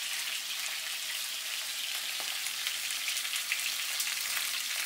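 Salmon fillets frying skin-side down in hot oil in a cast-iron skillet: a steady sizzle with fine crackling spatter.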